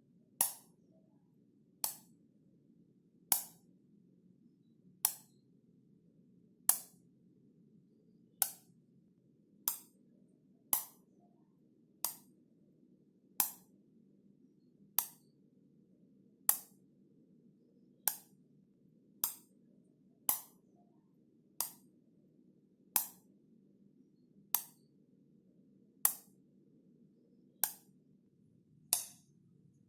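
Wall light switch being flipped on and off repeatedly: about twenty sharp single clicks, evenly spaced a little over a second apart.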